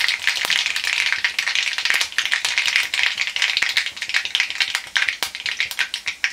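Mustard seeds spluttering in hot oil: a dense, fast crackle of sharp pops over a frying sizzle, thinning a little toward the end. The popping is the tempering step, the seeds bursting as they finish in the hot oil.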